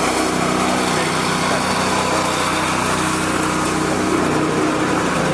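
Walk-behind concrete power trowel ('floor helicopter') with its small petrol engine running steadily under load.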